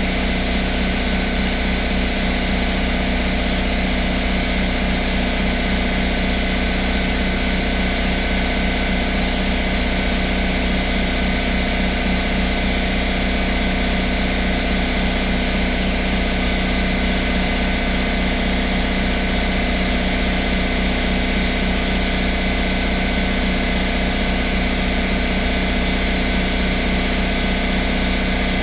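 Steady motor drone of a spray-painting air supply, with the hiss of an HVLP spray gun laying a coat of clear on the panel. The sound is unbroken and even, with a fast low pulsing under it and a thin high whine above.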